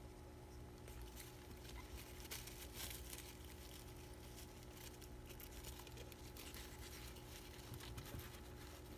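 Hamster handling a lettuce leaf among wood-shaving bedding: faint, crisp crunching and rustling in quick small ticks, busiest two to three and a half seconds in, over a faint steady hum.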